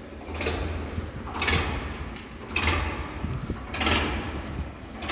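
Preet 955 tractor's three-cylinder diesel engine idling, heard from the driver's seat as a steady low hum, with a rush of noise about once a second.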